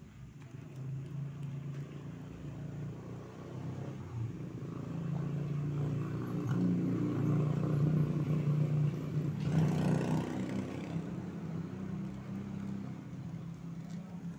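A motor vehicle engine passing close by, its hum swelling to a peak with a short rush of noise about ten seconds in, then fading.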